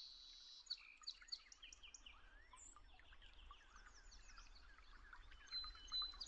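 Faint birdsong: several small birds chirping in many short, overlapping calls.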